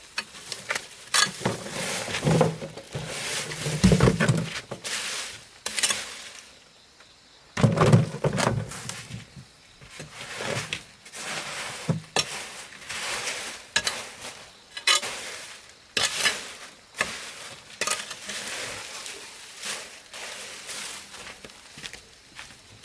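A run of knocks, clatter and light clinks of objects being handled, with heavier thuds about two to four seconds in and again around eight seconds.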